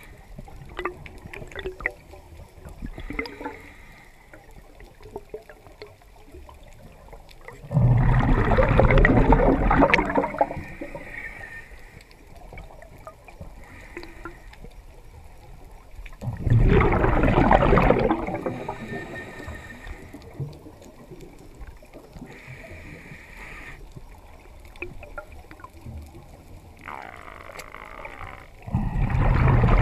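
Underwater, a diver's exhaled breath bubbling out in loud rushes three times, each lasting two to three seconds and several seconds apart: about a third of the way in, just past halfway, and near the end. Between the exhalations it is quieter, with short hisses and faint clicks.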